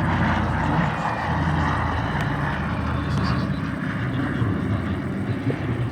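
Twin radial piston engines of a Douglas C-47 running steadily in flight, a low propeller drone that eases off slightly in the second half.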